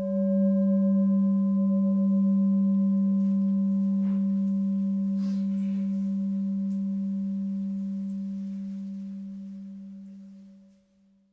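A singing bowl struck once, its low tone ringing on with a slight pulsing wobble and fading away over about ten seconds.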